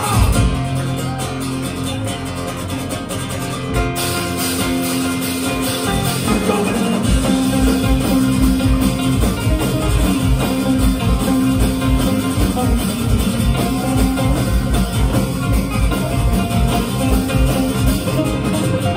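Live band playing a thrash-metal and bluegrass song on electric guitars. About six seconds in, the full band comes in with a driving beat and the music gets fuller and louder.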